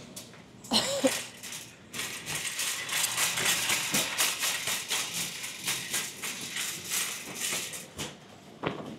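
Plastic bags and packaging rustling and crinkling as they are handled, a dense run from about two seconds in until near the end, with a brief louder clatter about a second in.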